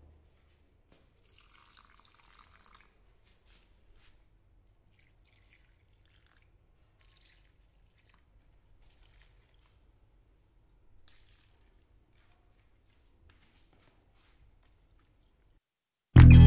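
Water poured from a steel jug onto potted plants: a faint pour about two seconds in, then scattered trickles and drips onto the soil. Acoustic guitar music starts right at the end.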